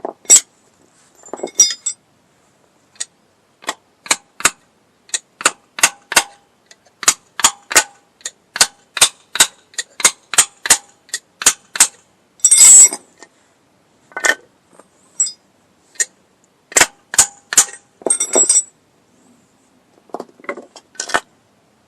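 Hammer striking metal again and again as a new dowel pin is driven into place in a drum-brake assembly: sharp metallic taps, often about two a second, with a couple of longer clattering bursts about halfway through and again later.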